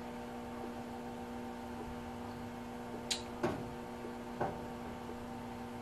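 Steady electric hum of a screen-printing conveyor dryer running, its belt carrying shirts through, with three short clicks between about three and four and a half seconds in.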